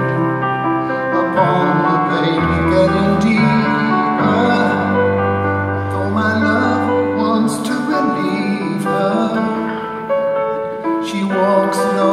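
Live music: a slow piano song with long held notes over low bass notes.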